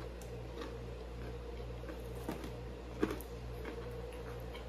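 Quiet chewing of fried seafood, with a few faint clicks and taps as pieces are picked from a metal sheet pan, the loudest tap about three seconds in. A steady low hum runs underneath.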